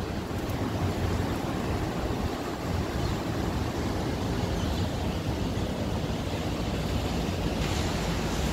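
Heavy rain pouring steadily, with a low rumble of wind on the microphone.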